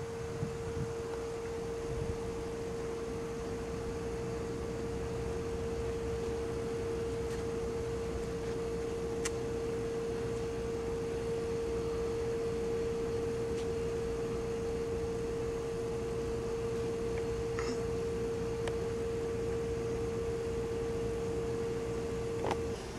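A steady single-pitch tone, held unchanged for over twenty seconds, over a low rumble. Near the end the tone suddenly drops much quieter.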